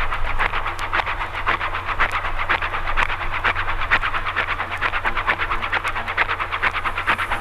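Train running, with a fast, even rhythm of short chuffing or clattering strokes over a steady low hum.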